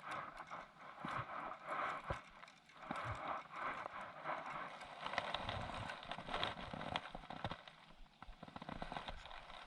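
Irregular clicks and knocks of fishing tackle being handled as a fish hooked on a sabiki rig is reeled in and landed, over a faint noisy hiss.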